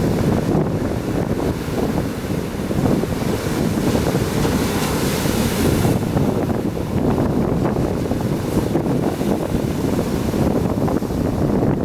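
Sea surf breaking and washing on the shore, with wind buffeting the microphone. A brighter hissing surge rises about four seconds in and fades away about two seconds later.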